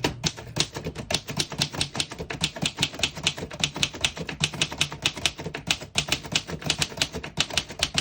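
1925 Remington Portable typewriter being typed on quickly: a fast, even run of typebar strikes on the platen, several a second.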